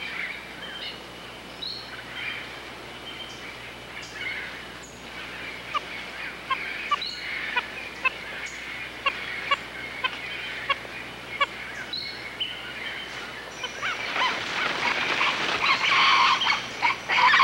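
Wild animal calls in forest: scattered short chirping calls, then a louder, denser run of calls for the last few seconds.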